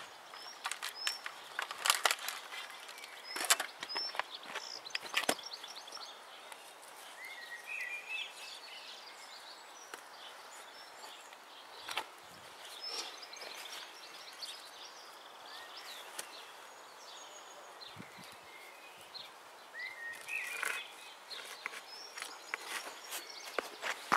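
Outdoor garden ambience with small birds chirping now and then. Scattered clicks, knocks and rustles of a person moving about on foot and handling gear come at the start and again near the end.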